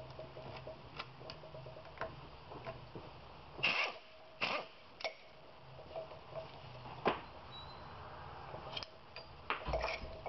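Scattered clicks and knocks of metal parts being handled as an aluminum oil-burner preheater assembly is taken apart by hand, the loudest knocks a few seconds in and near the end, over a faint steady hum.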